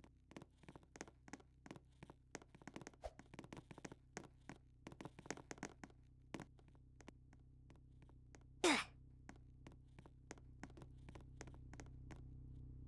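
Steady low hum with a scatter of small, irregular clicks and taps, then one short, sharp burst of noise a little past the middle.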